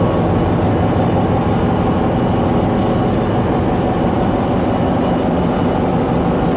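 Engine-room machinery noise aboard a large container ship running at full sea speed: a loud, constant, dense drone with many steady hums layered over a hiss.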